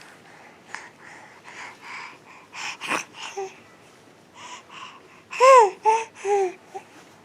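A baby babbling with breathy huffs and gasps, then three short high-pitched squeals near the end.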